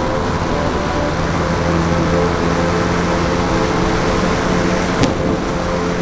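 Magnum XLS .70 four-stroke glow engine of an RC airplane running at a steady speed, mixed with heavy wind noise on the microphone. A sharp click sounds about five seconds in.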